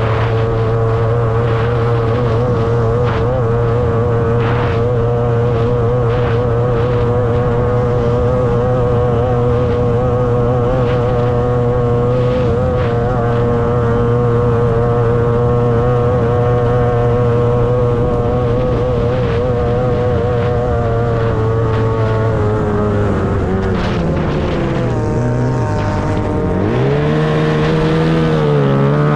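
30 hp two-cylinder racing outboard motor running flat out at a steady high pitch, with occasional short knocks. Over the last few seconds the engine pitch drops steeply as the throttle comes off, then climbs again as it is reopened.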